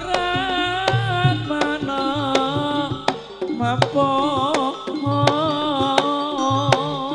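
Live jaranan music: hand drums beat a busy rhythm with sharp percussion strokes under a wavering, held melody line.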